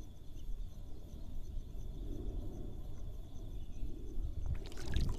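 A steady high insect trill over a low rumble; about four and a half seconds in, sudden splashing and crackling start as a fish is hooked.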